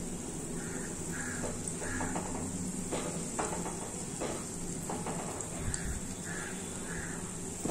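Nikuti dough dumplings sizzling steadily as they deep-fry in oil in a kadai, with a silicone spatula stirring them and knocking against the pan a few times. A bird calls in the background, in two runs of three short calls.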